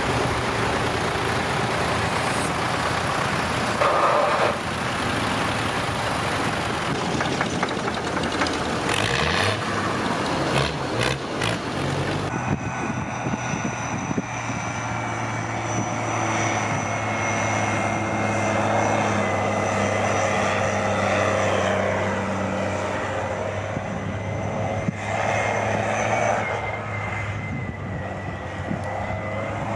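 Vintage farm tractors' diesel engines running as they drive past in a line along a road. About twelve seconds in, this gives way to a JCB Fastrac's engine running steadily as it drives across a field, with a thin high whine over the drone.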